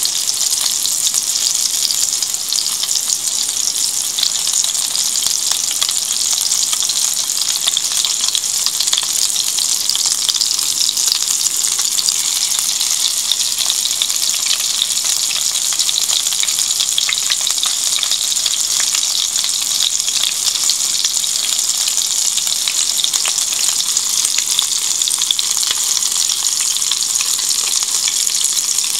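Cod and vegetable patties frying in shallow oil in a stainless steel pan: a steady sizzle with fine crackling throughout.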